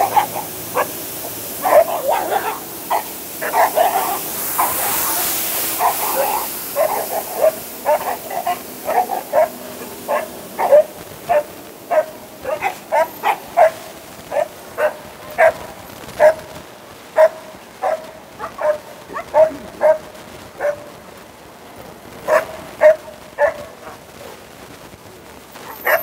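Springer spaniel barking over and over in short barks, one or two a second, with a short lull near the end. The barking is a reaction to a street sweeper's noise, which is upsetting to the dog. A steady hiss from the sweeper fades out over the first few seconds.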